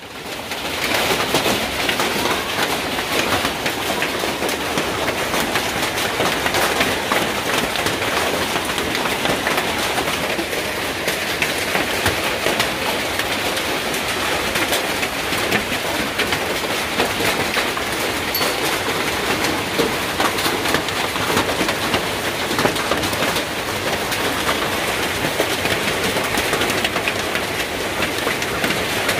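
Hailstorm: a dense, steady clatter of hailstones striking, countless sharp ticks over a constant rushing hiss, fading in over the first second.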